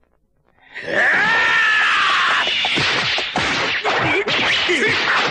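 Anime fight sound effects. After a moment of near silence, a loud whooshing rush starts with a long cry falling in pitch. Then comes a rapid series of punch impacts mixed with short grunts.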